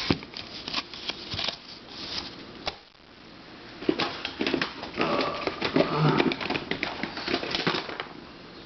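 Plastic twisty puzzles and their packaging being picked up and handled, giving irregular clicks, taps and rattles.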